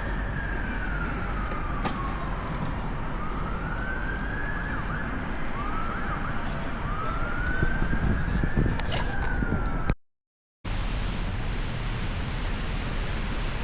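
Emergency vehicle siren wailing, its pitch rising and falling slowly, over a steady rumbling background. It cuts off about ten seconds in with a short gap of silence, after which only a steady rushing noise remains.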